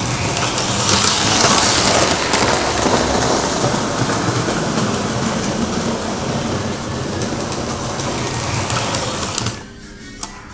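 Lionel 2245 Texas Special F3 diesel A-B set running on three-rail O gauge track: a loud, steady rumble and rattle of wheels and motors on the tinplate rails, which cuts off suddenly about nine and a half seconds in.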